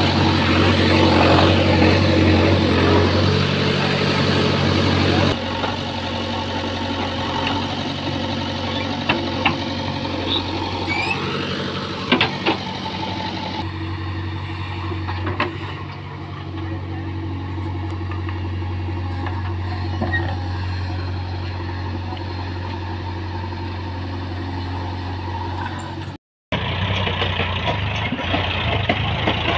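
JCB 3DX backhoe loader's diesel engine running steadily under work while it digs and moves soil, with a few sharp knocks in the middle. Near the end, after a short break, a Massey Ferguson 7250 DI tractor's diesel engine running as it pulls a loaded trolley.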